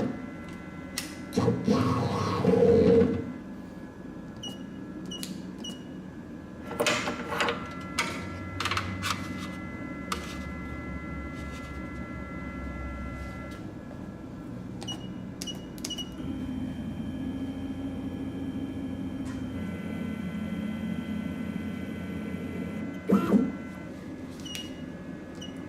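DeskMASTER DM500 desktop CNC mill milling a circuit board: a steady machine whine whose tones shift about halfway through, with scattered clicks, repeated short high chirps, and a few louder bursts near the start and near the end.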